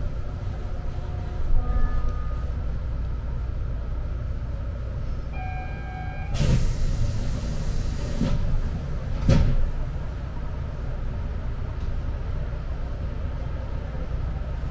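Rokko Liner rubber-tyred automated guideway train running, heard from inside the car: a steady low rumble, with brief faint squeals about two and five seconds in and two louder bursts of noise at about six and a half and nine seconds.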